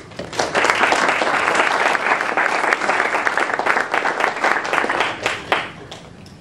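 An audience applauding a speaker's introduction, starting right away and dying away near the end.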